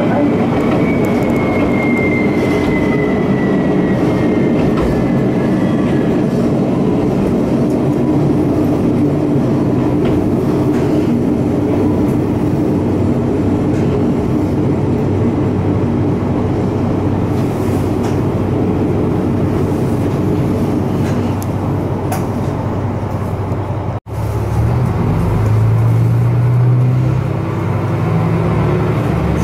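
A Kanto Railway Joso Line diesel railcar heard from inside the car: engine and wheel noise as it runs and pulls into a station, with a high whine that falls in pitch over the first few seconds. After a brief break about 24 seconds in, a deep steady engine hum takes over as the diesel idles at the platform.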